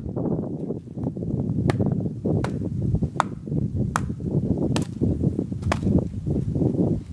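Wooden baton knocking on a knife set in a stick of firewood, batoning it to split it: about six sharp knocks a little under a second apart, starting about one and a half seconds in, over a steady low rustle.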